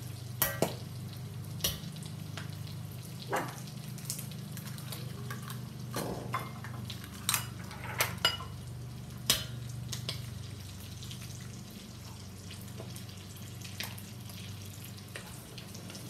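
Eggs and bacon sizzling in a very hot wok, with a dozen or so sharp clicks and knocks against the pan as the eggs go in and are worked with a wooden spatula, over a steady low hum.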